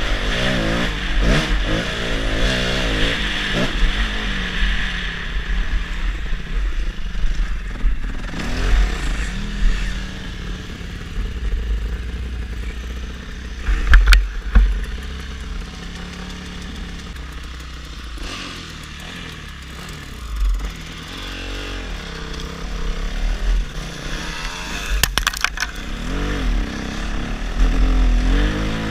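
Yamaha motocross bike's engine revving up and easing off again and again while it is ridden, with wind rumble on the bike-mounted microphone. A few sharp knocks cut through, the loudest about halfway in and another cluster later.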